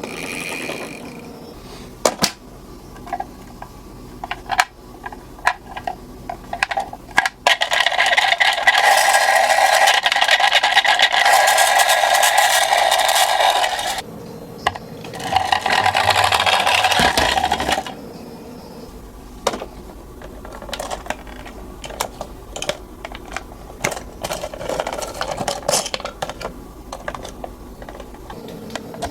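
Toy minicars clicking and rattling as they are handled and set on the slope, with two stretches of steady whirring as a car rolls down: a longer one starting about eight seconds in and a shorter one around fifteen seconds. No siren sounds here.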